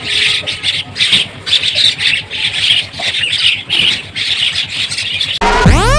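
A flock of small birds chattering and calling all together in a dense, continuous din. Near the end, loud music with sliding tones cuts in over it.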